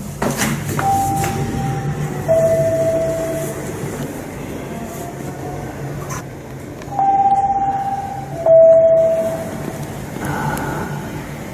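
Station platform's electronic two-note chime, a high tone stepping down to a lower one, sounded twice over a steady low hum.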